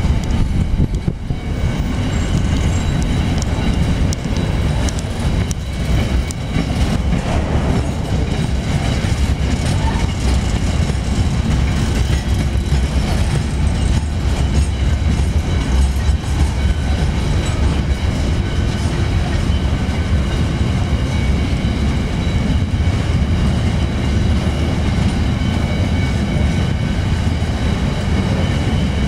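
Freight train wagons, mostly empty steel flat wagons, rolling past: a steady rumble with wheels clicking over the rail joints.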